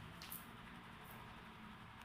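Near silence: faint steady room hiss, with a brief soft click about a quarter second in and a fainter one about a second later.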